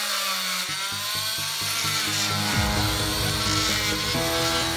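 Oscillating multi-tool cutting a glued wooden dowel plug flush with the board's surface, its buzz wavering up and down as the blade is pressed and moved, under background music.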